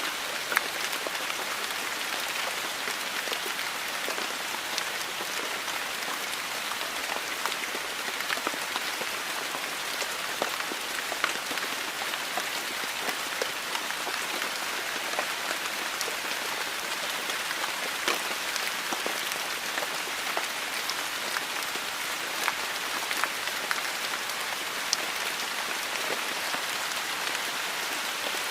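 Steady rain falling, a constant hiss with many individual drops pattering and ticking on a hard surface.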